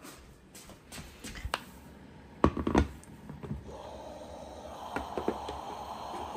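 Knocks and clatter as a plate and the plastic parts of an electric food steamer are handled, loudest about two and a half seconds in, then the steady hiss of the steamer running hot from a little past the halfway mark, with a sharp knock at the very end.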